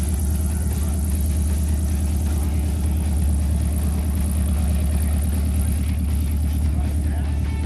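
Single-engine propeller light aircraft taxiing at low power, its engine running with a steady low hum.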